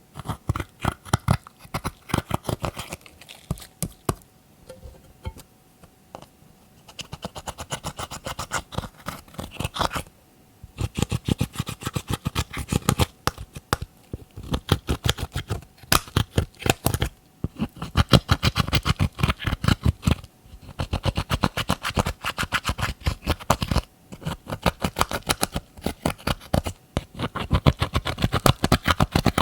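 Glossy slime being squished and mixed by hand: rapid sticky clicks and pops in runs of a few seconds, broken by short pauses.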